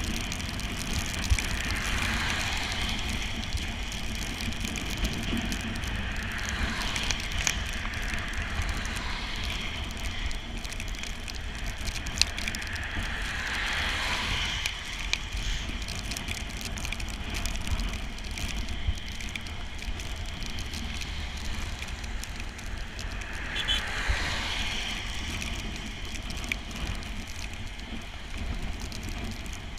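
Bicycle ride in the rain: wind buffeting the microphone with a steady low rumble, over the hiss of tyres on a wet road. The hiss swells a few times.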